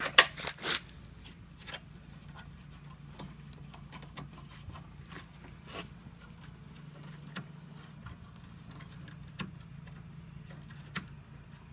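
Handling noises from assembling a lawn mower handle: a quick flurry of rustles and sharp clicks in the first second, then scattered faint clicks and taps. A steady low hum runs underneath.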